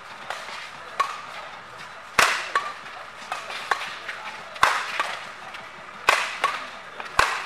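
Badminton rally: rackets hitting the shuttlecock in quick exchanges, about a dozen sharp hits, four of them loud cracking smashes with a short echo, over a steady crowd murmur.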